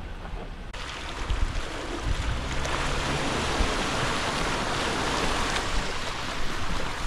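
Muddy water splashing and churning as a Jeep Wrangler wades slowly through a deep puddle, with a low vehicle rumble underneath. The splashing jumps louder about a second in and stays steady.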